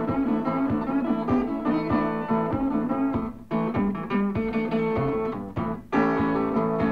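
Music: guitar playing an instrumental passage between the sung lines of a song.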